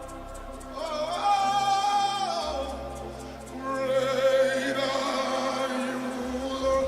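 Live worship music: sustained chords held under a singing voice that holds two long, wavering wordless notes, the first about a second in and the second about halfway through.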